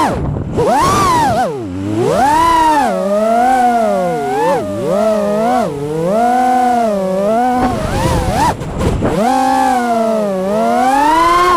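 FPV freestyle quadcopter's brushless motors and propellers whining, the pitch swooping up and down constantly with the throttle, with deep drops about one and a half seconds in and again about eight seconds in.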